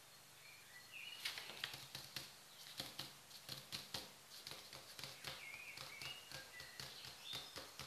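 Faint bird chirps, short rising and falling calls every second or two, over irregular soft taps and clicks that start about a second in.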